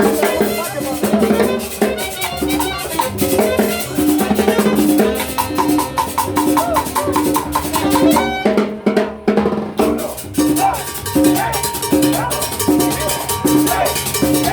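Music with a steady, busy drum and percussion beat under pitched instrumental notes. The drums drop out briefly about nine seconds in.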